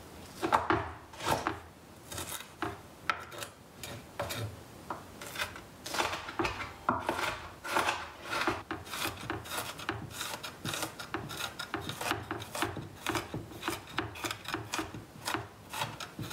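Santoku knife dicing an onion on a wooden chopping board: quick, irregular chopping strokes, a few a second, the blade knocking on and rubbing across the wood.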